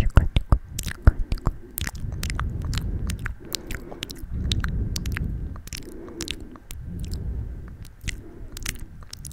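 Close-miked wet mouth sounds: a quick run of wet clicks and smacks that thins out after about two seconds, with softer low sounds between the later clicks.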